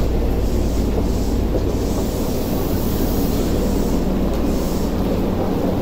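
Steady low rumble and hum of a Tokyu 8500 series subway train standing at the platform with its doors open.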